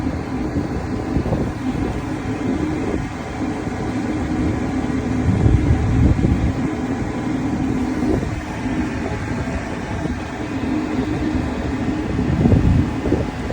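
A large engine running steadily, a constant low hum, with heavier low rumbles swelling twice, about five seconds in and again near the end.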